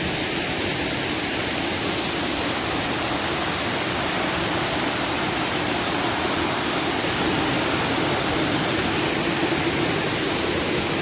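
Dry Falls waterfall rushing, a steady, even roar of falling water close by.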